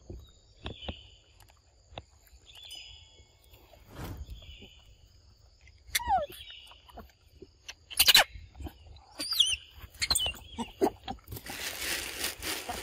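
Forest ambience with steady high-pitched tones and scattered clicks and knocks, broken by a few short falling calls, the clearest about six seconds in, and a loud sharp sound about eight seconds in. Near the end comes a burst of rustling.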